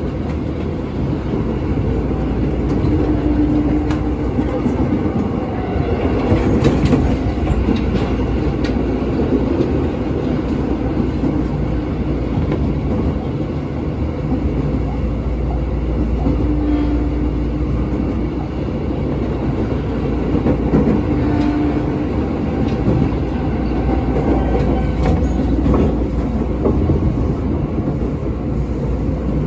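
Interior running noise of a former Tokyo Metro 6000-series electric train in motion: a steady rumble of wheels on the rails with traction motor hum, a few short steady tones coming and going.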